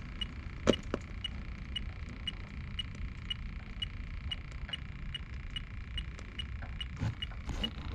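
Electronic refrigerant leak detector ticking steadily, about two short high beeps a second, while it samples air around the coil and picks up refrigerant. A sharp knock about a second in.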